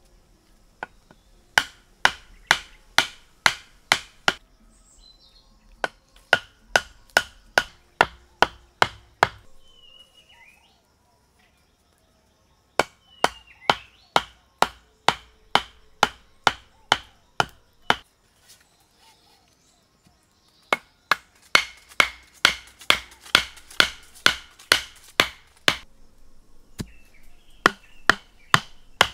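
Wooden mallet pounding wooden stakes into dirt ground: runs of sharp knocks, about three a second, in spells of a few seconds with short pauses between. A few faint bird chirps come in the pauses.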